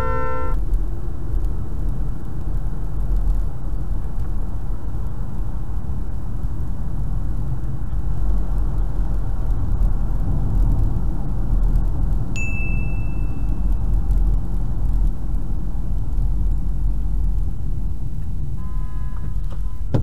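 Steady low rumble of road and engine noise picked up by a dashcam inside a moving car. A car horn blast cuts off just after the start, a single high ding sounds briefly about twelve seconds in, and a car horn honks again near the end.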